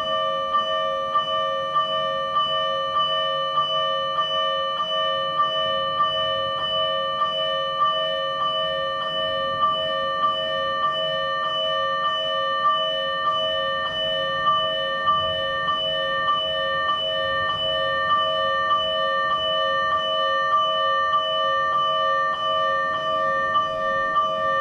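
Electronic fire-engine alarm bell (keishō) from a TWS-5102V siren amplifier, striking at an even pace of about three strikes every two seconds. Its metallic ring sustains between strikes.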